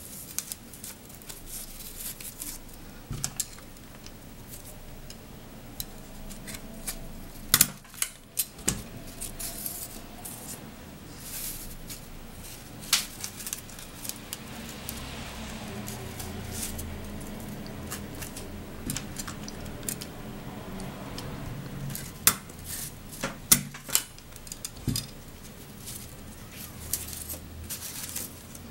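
Paper strips rustling as they are handled, with a few sharp clicks of a desk stapler fastening the paper loops together: three close together about eight seconds in, one a few seconds later, and another cluster near the end.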